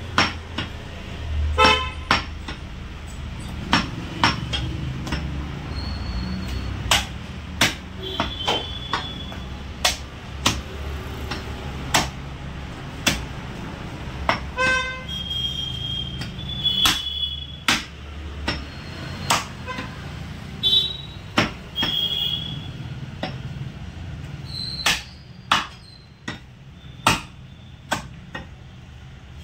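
Heavy cleaver chopping goat mutton on a wooden log block: sharp chops about once a second, unevenly spaced. Short vehicle horn toots and a low hum of traffic sit behind them.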